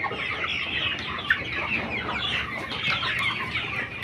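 A flock of broiler chickens peeping and clucking at once, many short calls overlapping in a continuous chatter.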